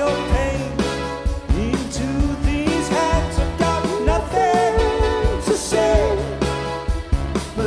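Live band playing a slow pop-rock song: a male lead voice sings long held notes into a microphone over keyboards, bass and a steady drum beat.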